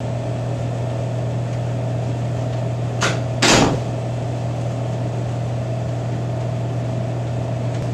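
Steady low electrical hum, the kind mains-powered appliances such as a vending machine and refrigerators give off. About three seconds in there is a short click, then a louder thump.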